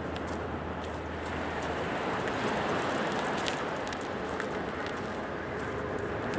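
Surf washing steadily onto the beach.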